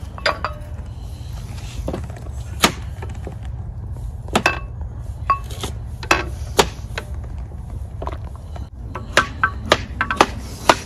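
A metal spoon clinking and knocking against a large enamel pot and a ceramic bowl as foam is skimmed off boiling pea soup. The clicks are sharp and irregular, a few of them ringing briefly, over a steady low rumble.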